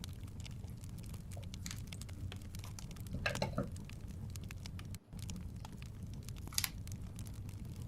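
Wood fire crackling in a fireplace: a steady low rumble with frequent small pops and crackles, a louder flurry of crackles about three seconds in and a sharp pop near the end. The sound drops out for a split second just past the middle.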